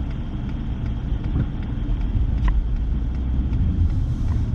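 Steady low rumble of a pickup truck driving, heard inside the cab: engine and tyre noise on a snow-covered road.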